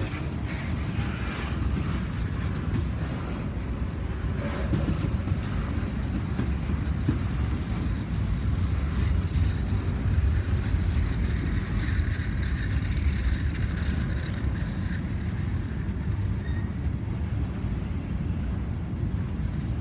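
A train rolling by with a steady low rumble, and a fainter higher hiss or squeal mixed in toward the middle.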